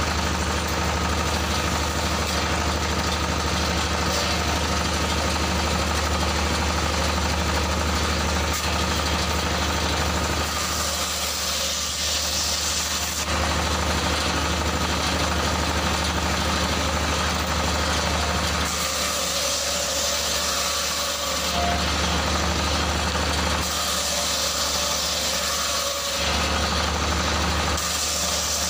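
Stationary engine running steadily, belt-driving a circular saw table. Four times the blade cuts through wood with a hissing rasp: about ten seconds in, then three more times from about nineteen seconds on, the last near the end.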